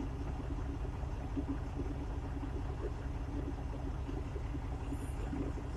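Truck engine running, heard from inside the cab as a steady low rumble.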